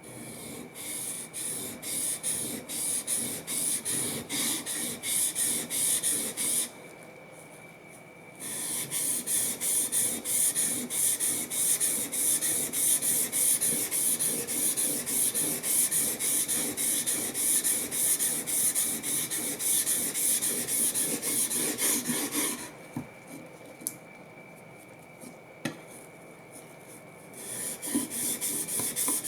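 Steel plane blade rubbed back and forth on a sharpening surface in quick, even strokes, a dry rasping hiss. The strokes stop twice, briefly some 7 seconds in and for several seconds near the end, with a couple of light clicks in the second pause.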